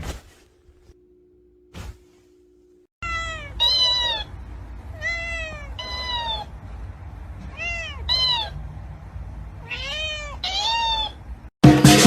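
A cat meowing over and over, about a dozen rising-and-falling meows, mostly in pairs. Before the meows begin there are two sharp clicks over a faint hum, and music starts just before the end.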